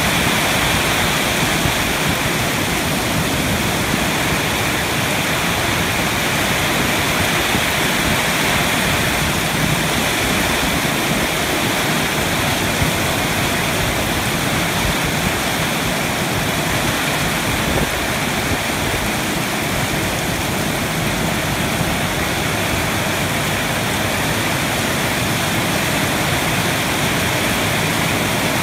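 Heavy rain falling in a steady downpour, with water streaming off a roof edge close by.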